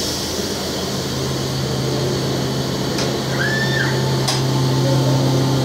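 CNC vertical machining centre running with a steady low hum, with a few light clicks and a brief high-pitched tone a little past the middle.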